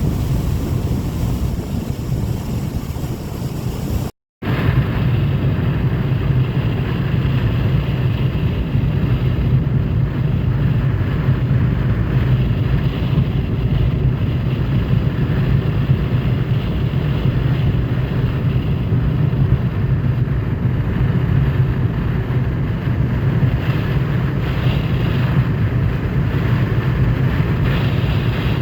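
Steady road noise inside a moving car on the highway: a low drone of tyres and engine with an even hiss over it. About four seconds in, the sound cuts out for a moment and resumes.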